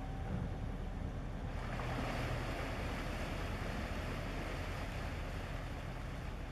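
Low steady drone of an inland cargo ship's engine under the rush of water, the rush growing louder about a second and a half in.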